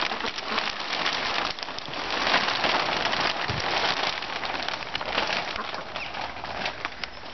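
Polythene polytunnel cover crinkling and rustling as it is pulled by hand over the hoops and billows in the wind: a steady, dense crackle of plastic.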